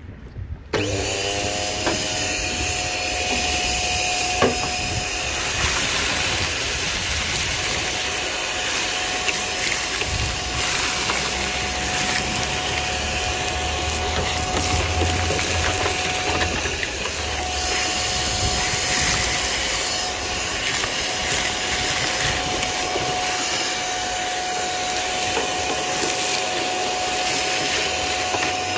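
Vacuum cleaner switched on about a second in, its motor whine rising and settling to a steady pitch, then running steadily as the hose sucks loose rust flakes and debris out of a rotted car bulkhead, with occasional clicks and rattles of debris in the hose.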